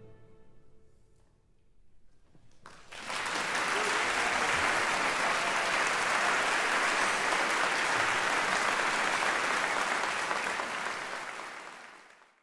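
The last chord of the concert band and marimba rings away in the first second. Then, about three seconds in, the audience breaks into steady applause, which fades out near the end.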